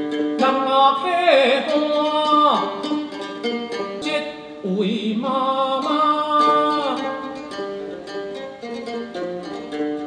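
A man singing a Taiwanese Hokkien folk song to his own plucked accompaniment on a yueqin (long-necked moon lute), notes picked steadily throughout. There are two long sung phrases, each sliding down in pitch at its end: the first starts about half a second in, the second about halfway through.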